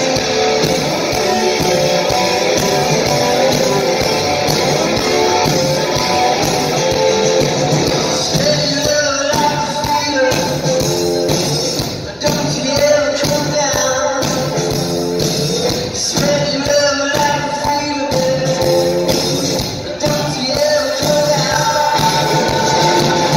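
Live rock band on stage, with electric guitars and singing, heard from the audience. There is a brief drop in level just before the middle.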